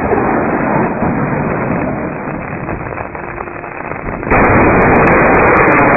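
Steady hiss, then about four seconds in a close lightning strike: a sudden loud clap of thunder that stays loud, with sharp crackles through it.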